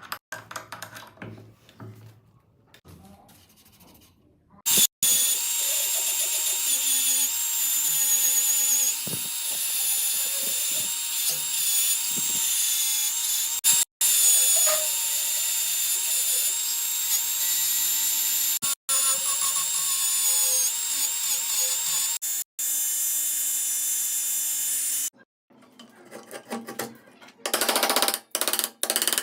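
Handheld power tool running at a steady high speed, used to remove rust from an old chisel. The run is broken by a few sudden gaps. Quieter knocks come before it starts and rapid clicking follows near the end.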